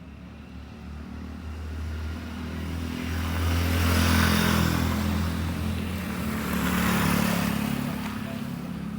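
A motor vehicle engine running as it passes close by, swelling to its loudest about four seconds in, rising again near seven seconds, then fading.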